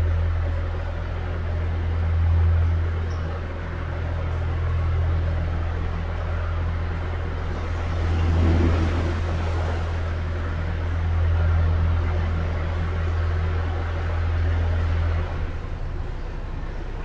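Engine of an oncoming narrowboat running in a brick canal tunnel: a steady low drone that swells and fades every few seconds. The drone drops away about fifteen seconds in, as the boat comes alongside.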